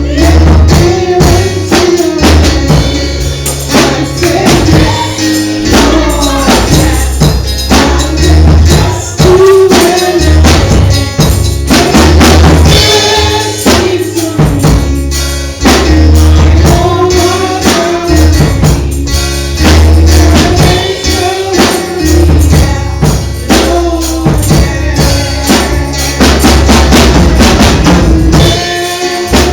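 Live gospel music: a singer over bass, drum kit and a steady tambourine beat.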